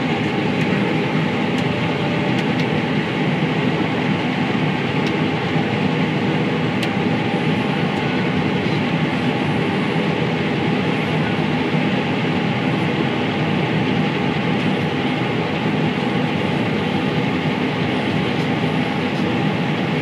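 Combine harvester running steadily under load while harvesting, heard from inside the cab: a constant drone of engine and threshing machinery with a steady hum.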